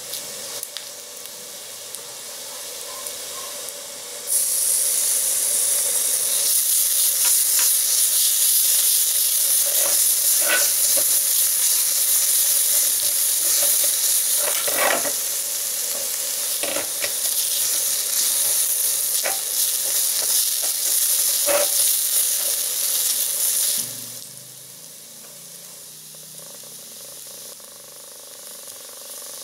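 Bacon frying in a miniature cast-iron skillet, a wooden spatula stirring it and now and then tapping against the pan. The sizzle jumps much louder about four seconds in and falls away sharply a few seconds before the end.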